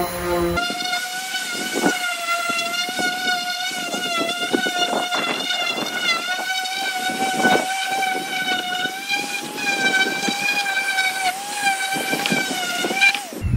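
Electric sander with 220-grit paper running over a wooden wall board: a steady high whine whose pitch wavers slightly, with scratchy sanding strokes. It starts about half a second in and stops just before the end.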